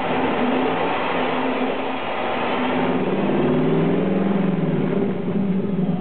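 Dodge Magnum's 5.7-litre Hemi V8 exhaust, heard from beneath the car, running steadily at raised revs of around 3000 rpm. Its pitch settles slightly lower about halfway through.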